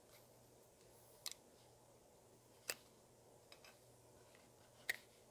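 Small wire cutter clicking shut on a diecast model's thin metal hood-hinge loop, pinching it smaller: a few sharp snips, the first a quick double and the last the loudest, over near silence.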